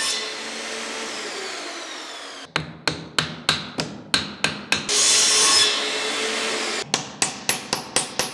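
A power saw running through a wooden plank, then a hammer driving nails in quick series of blows, about three to four a second, with a short burst of sawing between the two series.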